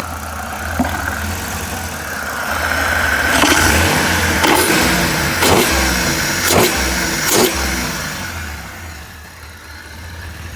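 Chrysler Town & Country minivan's V6 engine idling steadily. A louder, hissy stretch in the middle holds five short sharp clicks.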